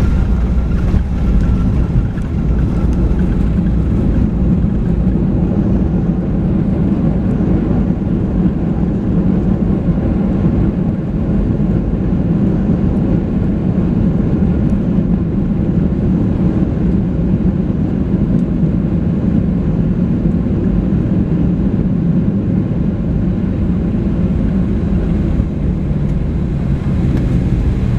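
Steady low rumble inside the cabin of a Boeing 737-700 rolling out on the runway just after landing. The engines and the wheels on the pavement come through the fuselage.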